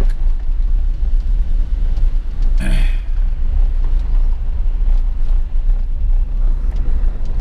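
Cabin noise of a 2020 Jeep Wrangler driving on a gravel dirt road: a steady low rumble of engine and tyres, with a brief burst of louder noise about two and a half seconds in.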